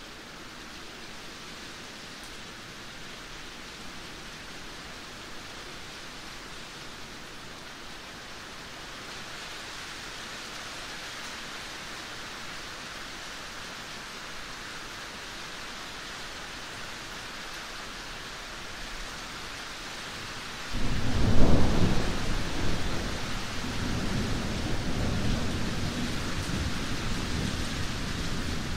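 Steady rain falling. About two-thirds of the way through, a sudden loud clap of thunder breaks in and keeps rumbling low under the rain.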